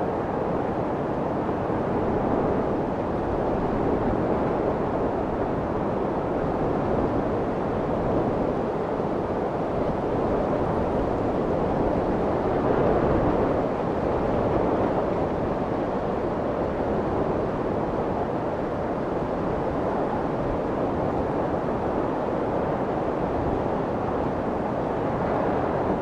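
Steady rushing wash of waves: a dense, even noise with no separate breakers, swelling slightly now and then.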